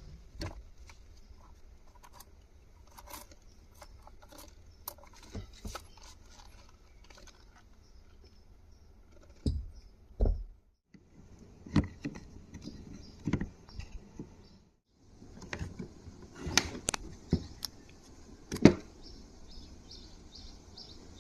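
Scattered clicks, taps and rattles of hands and tools working on a car's steering column trim, with a few louder knocks about halfway through and one near the end. The sound cuts out briefly twice.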